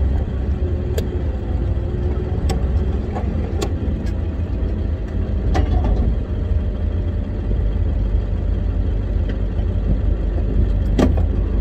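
Old ranch pickup's engine running, heard from inside the cab as a steady low rumble. A handful of sharp knocks and clanks come through it, the loudest near the end.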